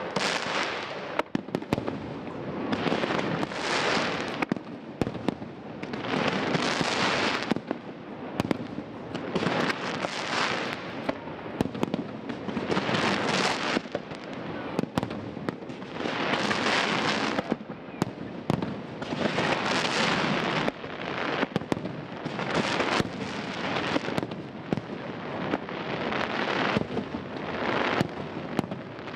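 A Pirotecnia Vulcano aerial fireworks display: shells bursting with many sharp bangs, and waves of dense crackle about every three seconds.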